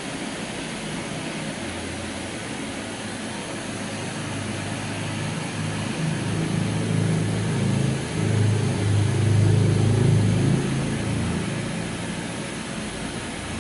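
Handheld canister gas torch burning with a steady rushing hiss as its flame plays over a coated motorcycle exhaust pipe. A low rumble swells louder between about six and eleven seconds in, then eases back.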